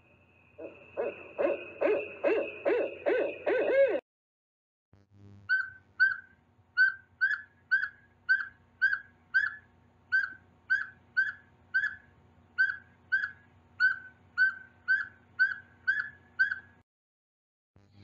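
Barred owl giving a rhythmic series of low hoots, which stops abruptly. After a short pause, a northern saw-whet owl gives its toot song: a long run of evenly spaced, higher single-pitched toots, a little over two a second.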